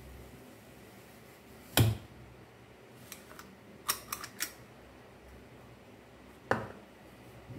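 A metal ice cream scoop knocking and clinking against a glass bowl and plastic tub while ice cream is scooped. There is one sharp knock about two seconds in, a quick run of four or five light clicks around four seconds, and another knock near the end.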